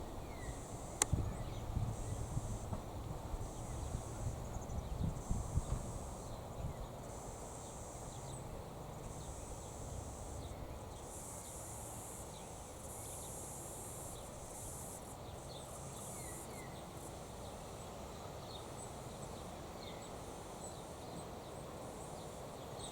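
An insect buzzing high and dry in regular pulses about once a second, with a few faint short bird chirps. A low rumble, like wind on the microphone, fades out after the first few seconds.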